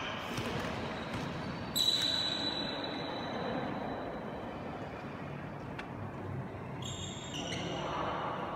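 Sounds of a badminton game in a large echoing hall between rallies: a sharp sound about two seconds in with a high ringing tone that fades slowly, then two shorter high-pitched rings near the end, over a steady low background noise.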